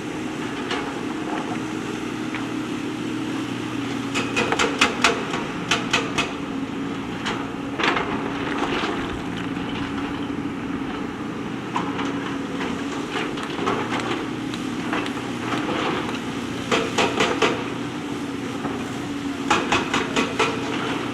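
JCB backhoe loader's diesel engine running steadily, with several bursts of sharp knocking and clatter as it works stones.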